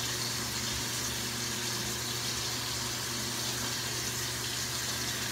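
Bathroom sink tap running, a steady hiss of water.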